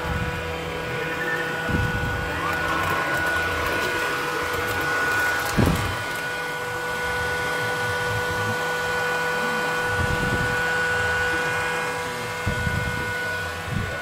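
Hoover Quest 1000 robot vacuum running, a steady motor whine, with a few low thumps, the loudest about six seconds in.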